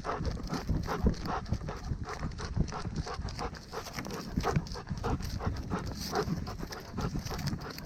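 A dog moving along, its footfalls and breathing picked up close by a camera worn on its body, with frequent irregular knocks and rubbing on the microphone.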